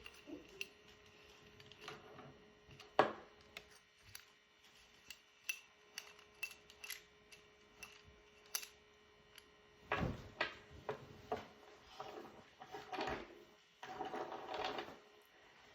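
Objects being handled: irregular clicks and taps, with a sharper knock about three seconds in and busier clattering and rustling from about ten seconds on.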